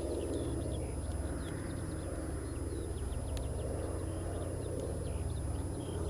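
Steady low drone of a distant twin-engine propeller aircraft on approach, with birds chirping over it.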